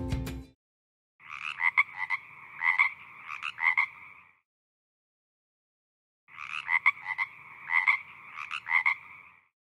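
Frog croaking, in two matching bouts of pulsed calls about three seconds long, separated by a couple of seconds of silence.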